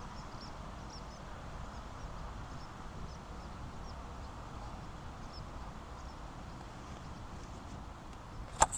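Outdoor rural ambience: a steady low rumble with faint, repeated high bird chirps, and a single sharp knock near the end.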